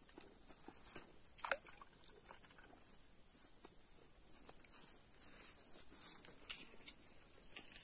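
Quiet pond-side ambience: a faint, steady high-pitched whine with scattered light clicks. A sharper tap comes about one and a half seconds in.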